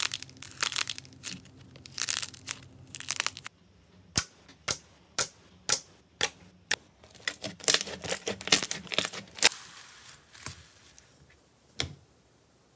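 Slime being squeezed and poked by hand, making crackling and sharp popping clicks. The clicks come thick at first, then as separate pops about twice a second, bunch up again, and thin out to a soft hiss near the end.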